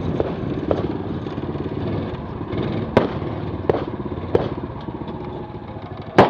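Sharp cracks of gunshots at a rifle range, about five of them at uneven gaps, the loudest near the end, over a steady low rumble.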